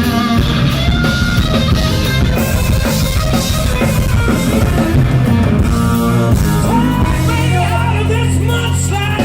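Hard rock band playing live at full volume, with electric guitar, bass, drums and singing; a low chord rings out, held, for the last couple of seconds.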